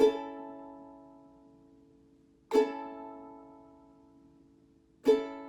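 Ukulele strummed down on an A major chord three times, about two and a half seconds apart, each chord left to ring and fade.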